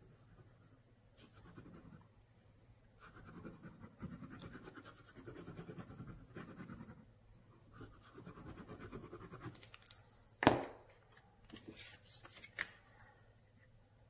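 The foam tip of a Tombow Multi liquid glue bottle scratching across cardstock as glue is squiggled on, on and off for several seconds. A single sharp knock follows about ten and a half seconds in, with a few small clicks after it.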